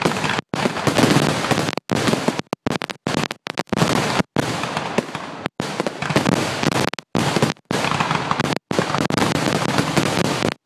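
Fireworks finale: many aerial shells bursting at once in a dense, continuous run of booms and crackling. The sound cuts out completely in short gaps again and again.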